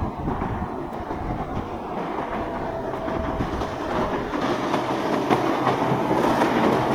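A train rolling along rails, a steady rumble with wheel clicks that grows slowly louder as it comes closer.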